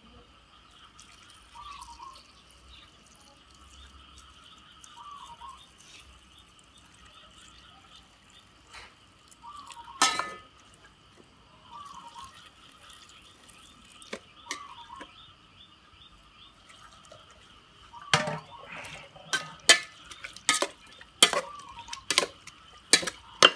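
Boiled fish sauce pouring from a tilted aluminium pot onto roasted pheka pods in a second aluminium pot. There is one sharp knock about ten seconds in, and from about eighteen seconds in a run of quick metal spoon clinks against the pot as the pods are stirred.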